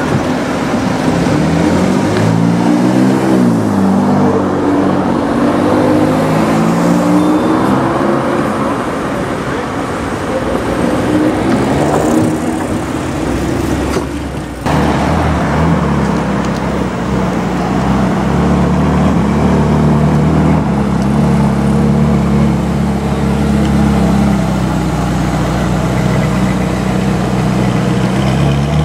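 Alfa Romeo Stelvio SUV pulling away with its engine revving up in rising pitch, over street traffic. After a cut, a steady low engine drone from cars crawling in city traffic, with an engine starting to rev up right at the end.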